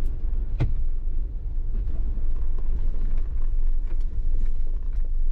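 Jeep Wrangler JK driving on a slushy snow-covered dirt trail: a steady low rumble with scattered light clicks and a sharp knock about half a second in.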